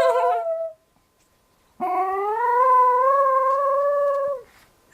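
Chinese crested dog howling: the tail of one howl dies away, then after a pause of about a second comes one long howl, rising a little at its start and then held steady for about two and a half seconds.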